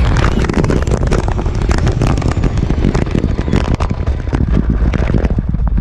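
Onboard sound of a Traxxas Stampede RC truck running fast on asphalt: a dense crackling clatter of chassis rattle and road noise over a steady low rumble of wind on the microphone.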